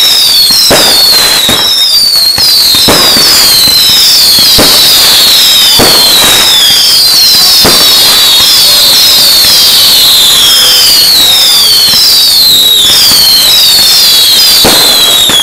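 Fireworks whistling and banging: many overlapping whistles, each falling in pitch, follow one another almost without a break, with sharp bangs every second or so.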